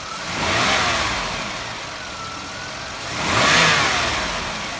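Pontiac G6's 3.5-litre V6 revved twice from idle, each rev climbing in pitch and falling back, peaking under a second in and about three and a half seconds in, with the engine idling between. The engine is being revved toward 3,000 rpm for a vacuum gauge test.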